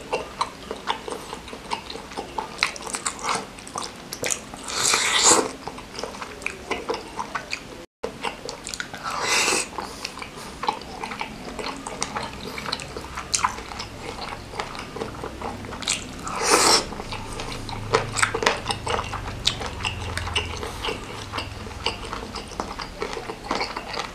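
Close-miked eating sounds: wet chewing and lip-smacking clicks of someone eating spicy seblak soup with meatballs and noodles. Three louder, drawn-out slurps stand out along the way.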